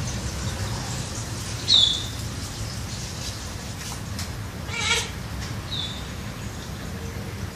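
Short animal calls over a steady hiss: a loud, brief high chirp about two seconds in, a raspy call about five seconds in, and a fainter high chirp near the end.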